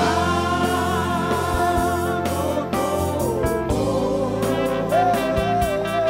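Live gospel worship music: a voice singing long held notes with vibrato over a band accompaniment, with backing singers. Drum hits come in about four seconds in.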